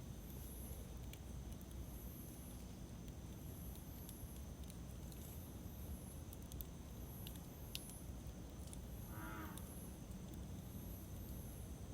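Wood campfire burning, with faint scattered crackles and snaps over a low rumble. A high chirping repeats about once a second, and a brief pitched call comes about nine seconds in.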